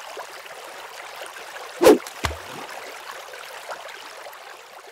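Steady rush of running water, with one loud sharp hit about two seconds in and a duller thump just after.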